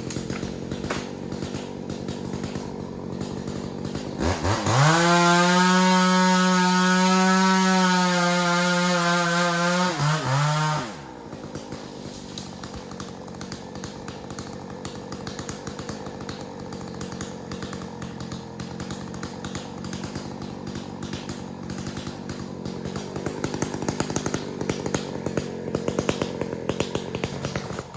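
Two-stroke chainsaw idling. About four seconds in it revs up to full throttle, holds a steady high pitch for about six seconds, then drops back to idle.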